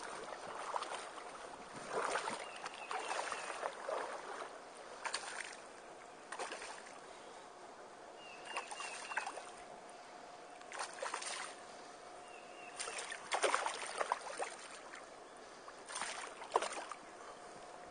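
Shallow creek water sloshing and splashing in short bursts every second or two, as someone wades or stirs the water. A short high tone comes three times.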